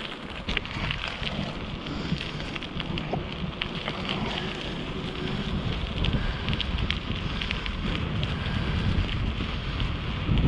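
Wind buffeting the microphone during a bicycle ride, with a running patter of small clicks and crackles on top.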